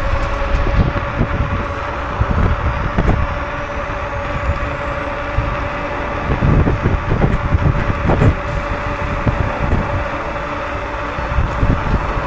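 Electric scooter riding at speed: a steady motor whine over low road and wind rumble, with scattered knocks from bumps in the rough pavement.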